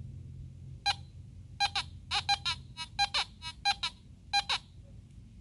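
Teknetics G2+ metal detector giving a dozen or so short beeps of the same pitch, in quick clusters, as an 1854 New Brunswick half-penny token is swept past its search coil. The coin registers as a target with a VDI reading of 91.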